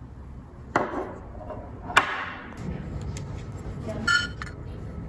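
Aluminium aircraft-kit parts being handled on a wooden table: two sharp knocks or clinks, then about four seconds in a short, ringing metallic ping.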